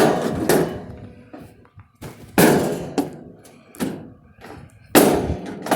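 Sledgehammer striking an old metal vending machine: three heavy blows about two and a half seconds apart, each ringing out briefly, with smaller knocks between them.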